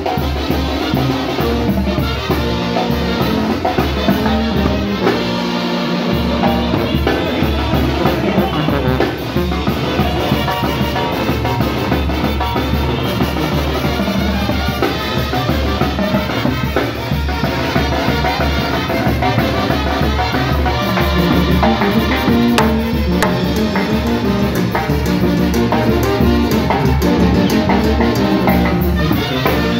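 Live Mexican banda music, a chilena: trumpets and saxophones playing over a pulsing sousaphone bass line, with timbales and drum kit keeping the rhythm.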